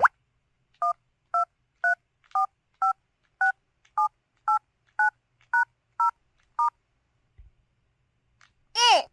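PT-S120 telephone keypad dialing tones: a short rising chirp, then twelve short two-tone DTMF beeps about half a second apart, stepping through the keypad. Near the end a louder pitched sound with a bending pitch begins.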